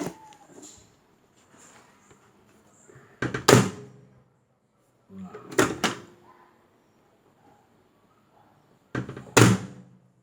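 Brastemp Clean microwave oven door being opened and shut three times, each time a sharp double click and thunk of the door latch. There is no relay chatter, because the stuck relay on the control board has been replaced.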